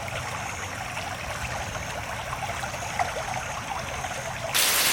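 Rainwater trickling and dripping in small scattered drops over a low steady hum. Near the end it switches suddenly to louder, denser rain hitting a surface.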